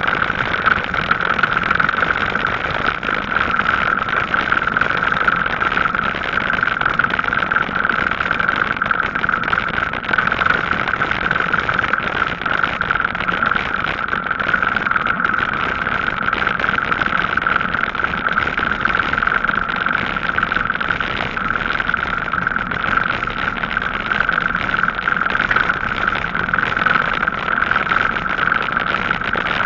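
Steady rolling noise of an e-bike ride on tarmac: tyre noise and wind on the microphone, even and unbroken, with a constant hum in the upper-middle range.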